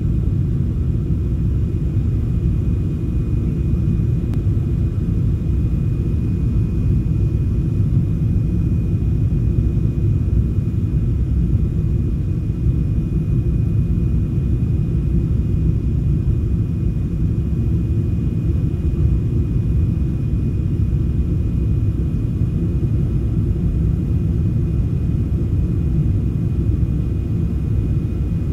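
Jet airliner cabin noise heard at a window seat in flight: a steady, even low rumble of engines and airflow, with a faint steady high whine.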